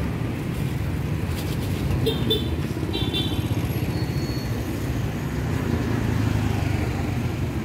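Steady low rumble of nearby road traffic, with a few short high squeaks about two and three seconds in.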